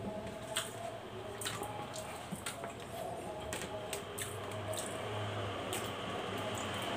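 Close-up eating sounds from a man eating rice with his fingers off a banana leaf: wet mouth and finger noises, with about six sharp clicks scattered through.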